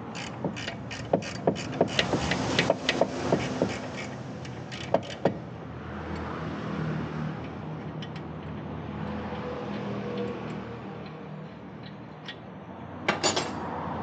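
A run of sharp metallic clicks and knocks from hand tools working on a car's rear suspension, about two to three a second for the first five seconds. A steady low hum follows, then a quick cluster of clicks near the end.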